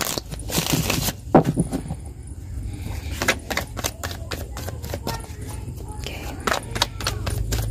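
Tarot cards being handled and shuffled by hand: a string of quick, irregular papery clicks and flicks, with a plastic bag rustling briefly just after the start. A steady low hum runs underneath.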